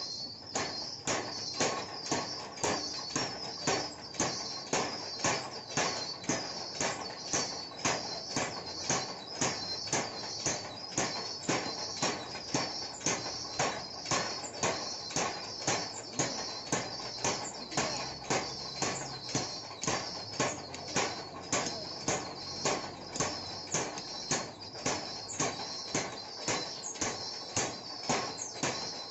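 Mechanical forging power hammer striking hot steel in a steady, even rhythm of sharp blows as a spade blank is forged.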